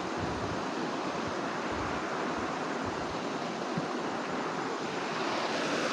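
Steady rush of flowing floodwater after heavy rain, rising a little near the end.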